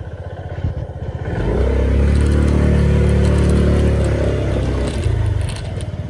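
Motor scooter's small engine ticking over with an even pulse, then rising and held at higher revs for about three seconds before dropping back to idle near the end.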